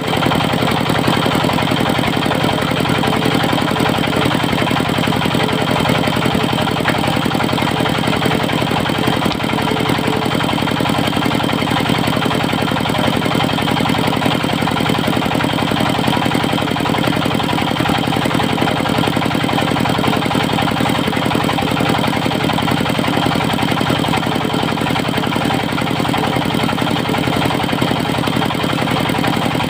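The diesel engine of a portable circular-saw sawmill running steadily at an even speed.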